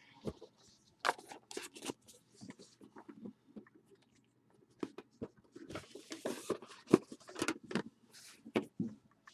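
Trading-card packaging and cards being handled: scattered scraping, tearing and tapping sounds, pausing briefly just before the middle, then a busier stretch of handling.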